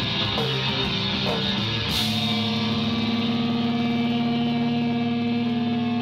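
A live rock band playing loud electric guitars, bass and drums. About two seconds in, the band hits together, the drums drop out and the guitars hold one sustained, ringing chord.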